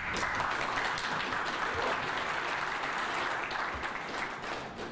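Audience applauding, a steady patter of many hands clapping that fades near the end.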